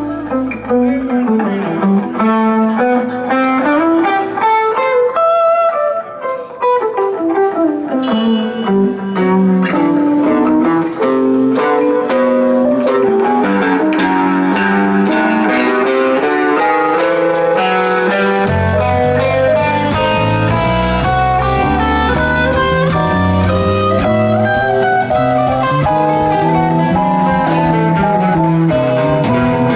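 Live rock band music led by an electric guitar playing long, winding single-note lines. The low end drops out about a second in and the bass comes back in about eighteen seconds in.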